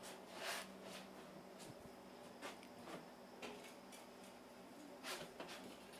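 Cloth scrubbing a glass window pane to clean off paint splatters: a few faint, brief swishes, with a faint steady hum underneath.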